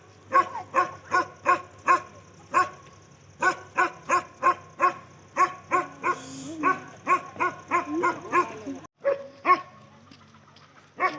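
Dog barking repeatedly in quick runs of about two to three barks a second, with a short pause partway through and only a couple of barks near the end.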